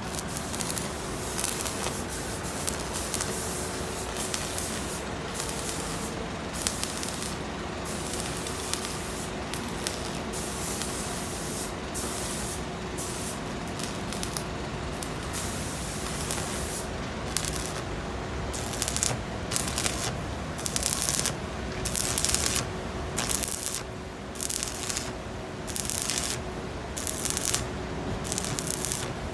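Electric arc welding of a steel floor plate onto a truck bed: a steady hiss that, in the second half, repeatedly breaks off and starts again in short runs.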